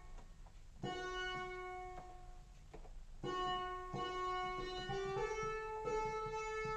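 Behringer Crave analog synthesizer playing notes with a plucked, piano-like tone, its envelope reshaped. A few notes ring out and step up in pitch, with a quick repeating pulse underneath from about four seconds in.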